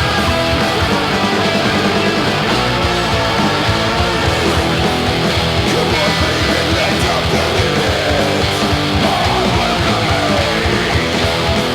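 Punk 'n' roll song with electric guitars, bass and drums, played from a vinyl record.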